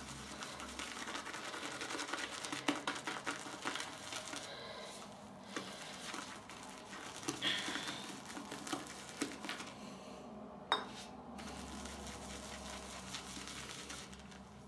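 Shaving brush swirling hybrid shaving soap into lather in a ceramic shaving scuttle: a steady wet, crackly swishing, with the brush now and then knocking against the bowl, most sharply about two-thirds of the way in. The lather is just forming after a teaspoon of water was added.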